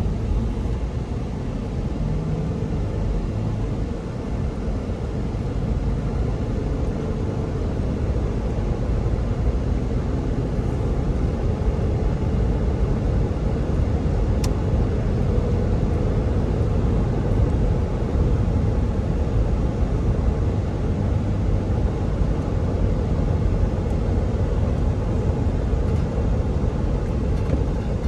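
Road noise inside a 2008 Toyota 4Runner cruising at about 55 mph: a steady low rumble of tyres and engine, growing a little louder over the first several seconds.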